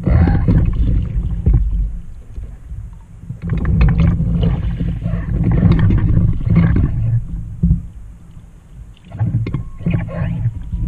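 Water sloshing and splashing around a Trak folding kayak as it rocks while the paddler leans out and braces on an orange paddle float. The sound comes in three surges with a lull about eight seconds in.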